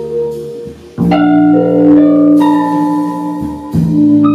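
Small jazz band playing live: saxophone, double bass, electric keyboard and drums. Long held notes with a brief dip just before a second in, after which new notes start sharply.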